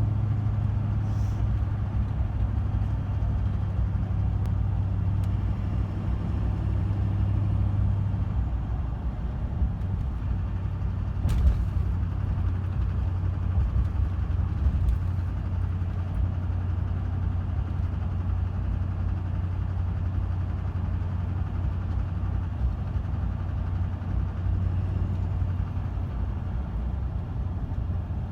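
6.6 L Duramax V8 turbo-diesel in a 2005 Chevy Silverado 2500 running steadily, with an intermittent knocking noise; one sharp knock stands out about eleven seconds in.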